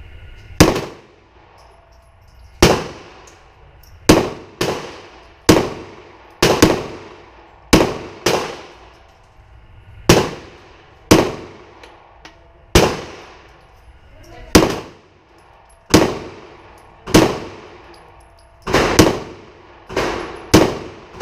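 Sig P320 X-Carry pistol firing about twenty shots at a slow, uneven pace of roughly one a second, each shot trailing off quickly. The magazine of 17 plus one chambered round is being fired through to test that the slide cycles, and it runs without a stoppage.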